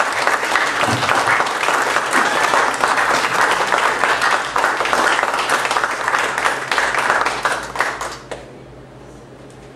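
Audience applauding: many hands clapping in a dense patter that dies away about eight seconds in, leaving quiet room tone.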